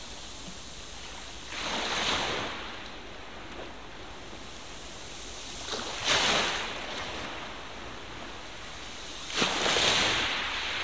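Magazine pages being turned by hand, three times, each a brief papery rustle over a steady hiss.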